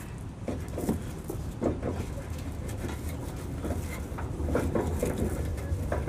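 Scattered light knocks and clatter of hands and tools handling parts at a riding mower's blade deck, over a low steady hum.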